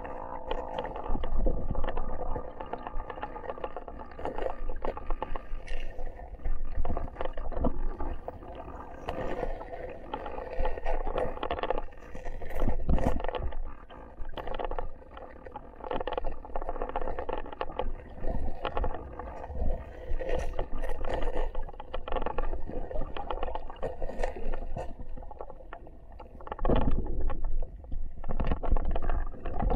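River water heard through a submerged action camera: muffled, gurgling water noise that swells and fades, with a few knocks about halfway through and a louder swell near the end.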